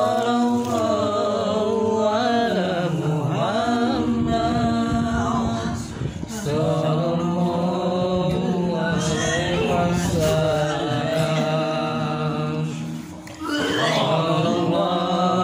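A voice chanting in long, drawn-out held notes with slow pitch slides, breaking off briefly near the end before resuming.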